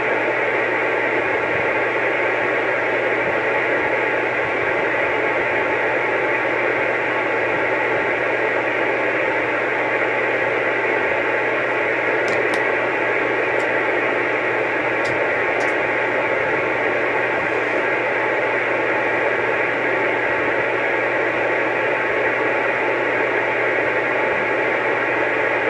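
CB radio speaker putting out a steady hiss of static on an open channel, with a low hum underneath.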